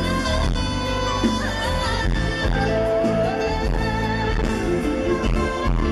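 A woman singing live over an amplified pop band with guitar and drums, her voice sliding through long, bending notes and holding one note about halfway through.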